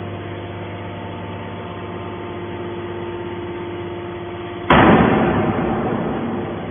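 Horizontal metal scrap baler running with a steady machine hum of several fixed tones. About two-thirds of the way in comes a sudden loud crash that fades away over a second or two.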